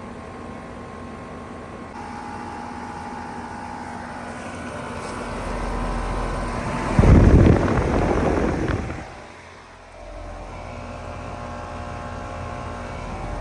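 Lennox Merit 2.5-ton heat pump outdoor unit starting up in heat mode. Its hum builds, a loud rush of noise comes about seven seconds in and lasts about two seconds, then drops away sharply, and the unit settles into a steady running hum.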